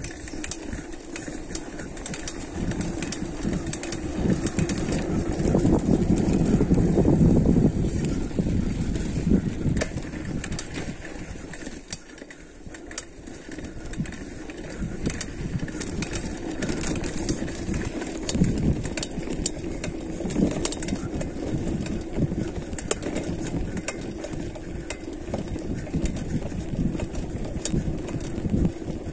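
Dirt jump mountain bike riding down a dirt trail: tyres crunching over dirt and stones, with the frame, chain and parts rattling and clicking steadily. The noise is loudest for a few seconds about five seconds in.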